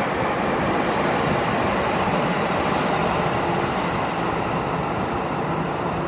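Tokyo Metro 9000 series subway train pulling out of an underground station: a steady rumble of wheels on rail with a faint motor hum, as the last cars pass and the train heads into the tunnel. The noise eases slightly near the end.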